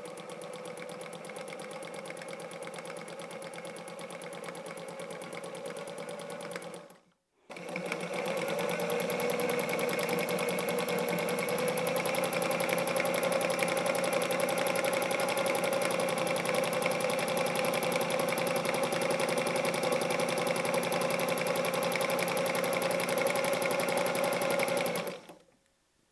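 Electric sewing machine stitching a narrow zigzag in free-motion quilting, feed dogs lowered. It runs steadily for about seven seconds, stops briefly, then runs again, louder, until it stops just before the end.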